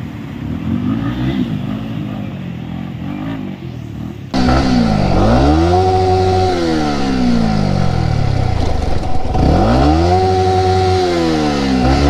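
Yamaha R15's single-cylinder engine on the move, its pitch repeatedly climbing, holding and dropping as the rider accelerates and eases off. About four seconds in, the engine sound suddenly turns much louder and clearer.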